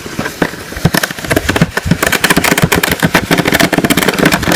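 Deep snow crunching and crackling in a rapid, dense stream of small cracks as it is shoveled and trodden through.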